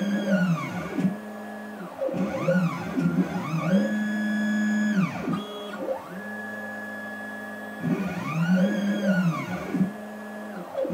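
Stepper motors of a DIY CNC router driving its axes through a G-code dry run. The whine rises in pitch as each move speeds up, holds, and falls as it slows, several moves in a row. Between moves there is a steadier, quieter tone.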